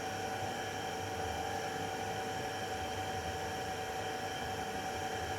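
Steady machine hum and hiss with several unchanging tones, like a running fan or air-conditioning unit.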